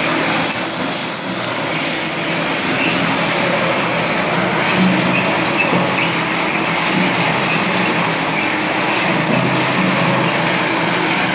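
Steady mechanical running noise of puff snack processing-line machinery. It is a dense, even din with a faint low hum and no distinct rhythm.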